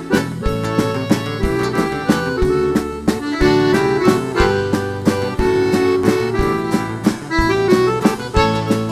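Live band playing an instrumental stretch of southern Brazilian gaúcho music: an accordion carries the melody over a steady drum-kit beat.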